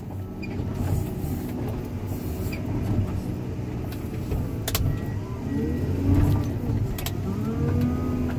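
Diesel engine and hydraulics of a grapple-armed scrap-handling machine running under load, heard from inside its cab. In the second half a whine rises and falls as the boom moves, and a few sharp clicks come through around the middle.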